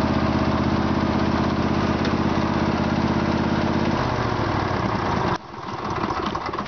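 Craftsman LT1000 lawn tractor's 18.5 HP Briggs & Stratton V-twin engine running steadily, then winding down in pitch about four seconds in and stopping abruptly about a second later. Faint scattered clicks follow.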